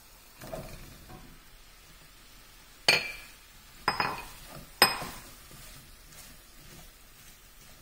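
Cauliflower florets tumbling out of a bowl into a stainless steel frying pan, followed by three sharp clinks against the pan, about a second apart, as the florets are spread with a wooden spatula, over a faint sizzle.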